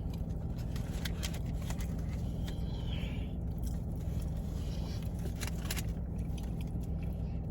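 Steady low hum of a car's engine idling, heard from inside the cabin, with a few faint scattered clicks.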